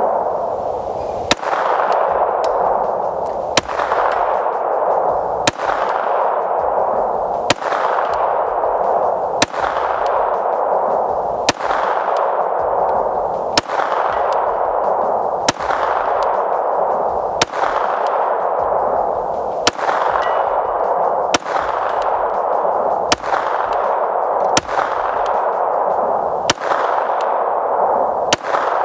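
Canik Rival 9mm pistol fired slowly in an aimed string, about fifteen shots at roughly two-second intervals. Each shot is followed by a long echo that fades away before the next one.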